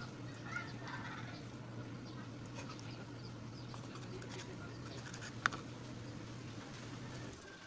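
Kitchen knife cutting leftover roast pork on a wooden cutting board, with one sharp knock of the blade on the board about five and a half seconds in. A steady low hum runs underneath and stops near the end, and a chicken clucks faintly about half a second in.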